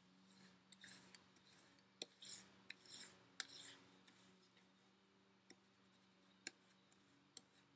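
Faint scratching of a white wax crayon rubbed on its side across paper laid over leaves, making a leaf rubbing. The strokes come in irregular short bursts, mostly in the first half, thinning to a few light ticks later.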